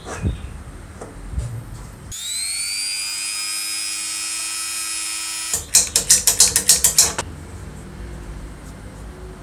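Small electric rotary tool with a sanding drum, sanding the inside of an aluminium housing. It spins up with a rising whine and holds a steady high whine for a few seconds, then gives a run of rapid loud pulses, about six a second. Light handling clicks come before it starts.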